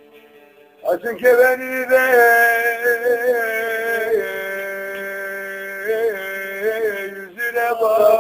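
A man singing long, drawn-out notes with ornamented bends in pitch, coming in about a second in over a faint held note.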